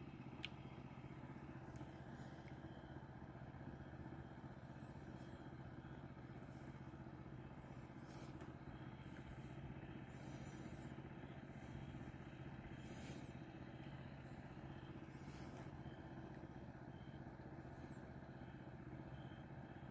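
Faint, steady low hum with brief high-pitched chirps every two to three seconds.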